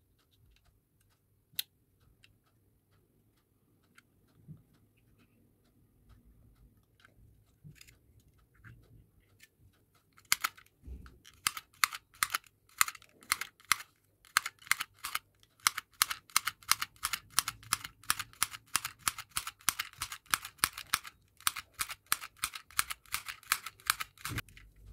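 Handheld mini stapler-style sewing machine squeezed again and again to stitch fabric: a quick, even run of clicks, about three a second, one per stitch. It starts about ten seconds in, after a few scattered handling clicks, and pauses briefly near the end.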